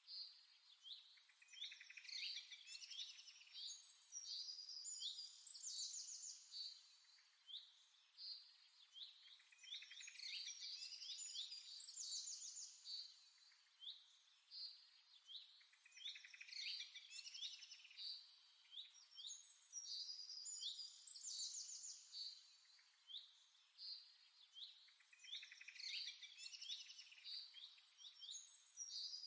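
Faint birdsong: quick chirps and trills, the same stretch of song coming back about every six seconds like a looped recording.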